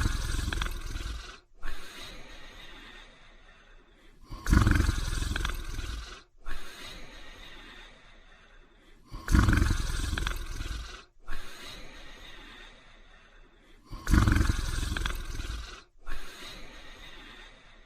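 A sleeping person snoring: a loud snore about every five seconds, each trailing off into a softer breath before the next.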